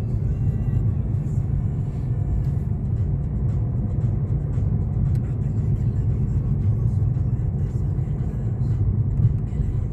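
Steady low rumble of engine and tyre noise heard inside the cabin of a moving car.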